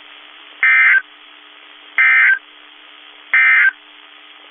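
Three short bursts of NOAA Weather Radio SAME digital data tones, each under half a second and about 1.3 s apart, over a faint steady hum. Their shortness fits the end-of-message code that closes a broadcast warning.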